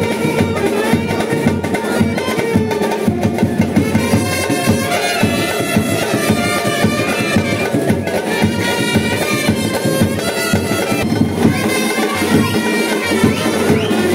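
Loud dance music with a steady drum beat and a melody line over it.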